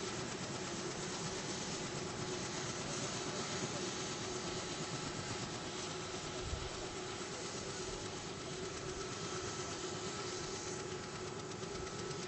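Steady mechanical hum of an engine running, with a few faint steady tones over an even noise.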